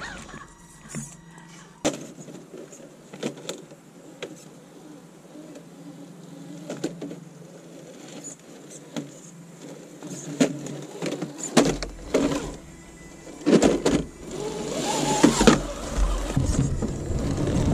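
Radio-controlled scale crawler truck's electric motor and drivetrain whining as it creeps over rocks, with repeated knocks and clatters of tyres and chassis against stone, busier and louder in the second half.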